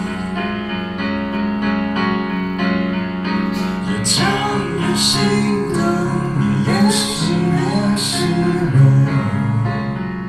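Live pop song: sustained keyboard chords, with a singing voice coming in about four seconds in.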